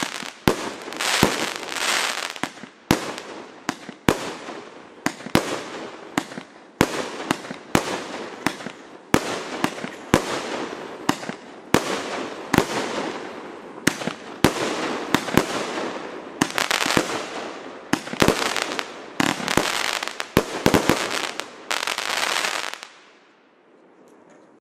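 Klasek Signature Range C2003SIG 200-shot, 30 mm (1.2-inch) compound firework cake firing its final shots: sharp bursts about two a second with a dense crackling hiss between them. The firing stops about 23 seconds in.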